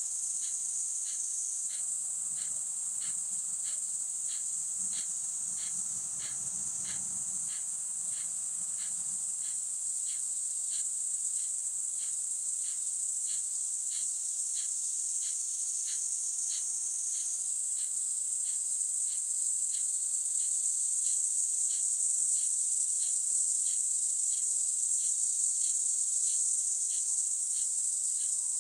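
Steady, high-pitched shrill of insects, with a second insect call on top: a regular ticking about two and a half times a second.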